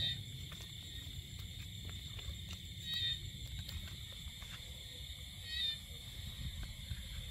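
Night insect chorus trilling steadily at a high pitch, with a short call repeating about every three seconds, over a low rumble.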